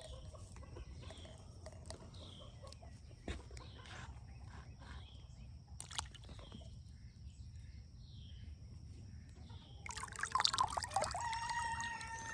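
Faint outdoor background with a short high chirp repeating about once a second, then a rooster crowing near the end, with a drawn-out call that falls in pitch.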